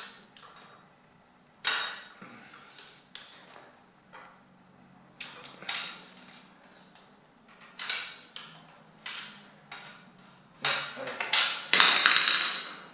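Steel bicycle parts and tools clanking and knocking together: irregular sharp metallic strikes every second or two, with a longer clattering rattle near the end. This is the drilled-out stripped crank and bottom bracket being knocked free and handled.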